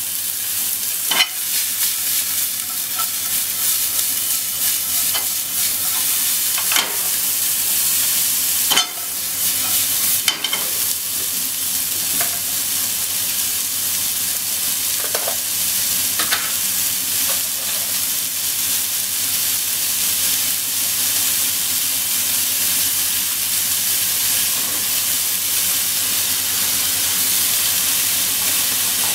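Diced onion and bits of meat sizzling steadily in an oiled nonstick frying pan over a gas flame, with a few short knocks and scrapes of a utensil on the pan, most of them in the first half.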